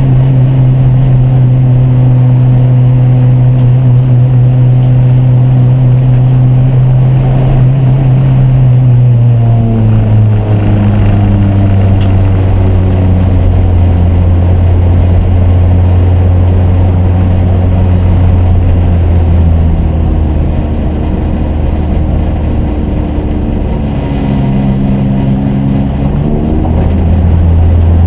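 Race car engine running loud and steady, its pitch dropping about ten seconds in, holding lower, then rising again near the end.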